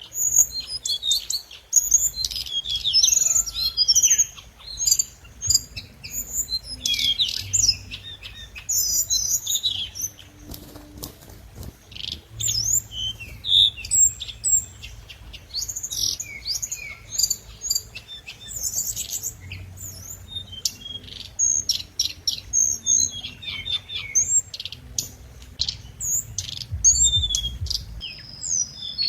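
A hồng hạnh songbird singing a fast, continuous run of high chirps and short trills, a lure (mồi) recording of its song.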